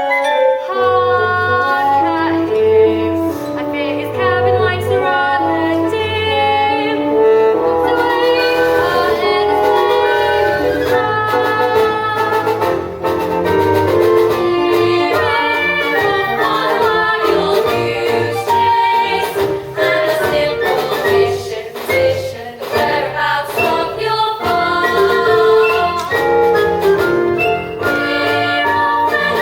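Young stage-school performers singing a musical-theatre song over a continuous instrumental accompaniment with a steady bass line.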